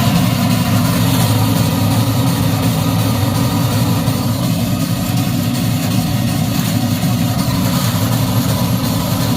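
Steady low roar with a hiss from a propane burner firing the boiler of a 3-inch scale Fowler DCC traction engine under steam.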